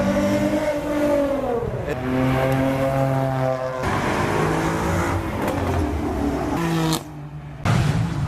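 Performance car engines revving as they drive past, the engine pitch sweeping down and back up several times. The sound dips sharply for a moment about seven seconds in, then returns loud.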